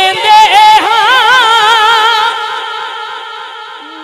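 A man singing a naat into a microphone. He draws out one long, wavering note that grows quieter over the last two seconds.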